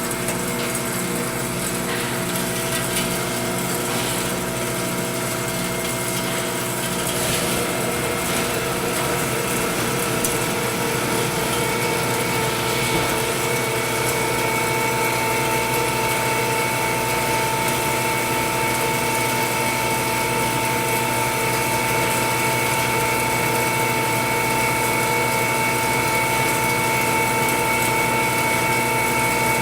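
Bomar 320-250DG horizontal band saw running steadily, its motor and blade making a mechanical hum. About halfway through, a higher steady whine comes in and grows.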